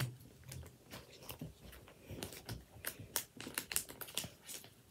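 Faint, irregular small clicks and rustles of a footy trading card being handled and pushed into a slot in a card album, which is stiff and hard to get it into.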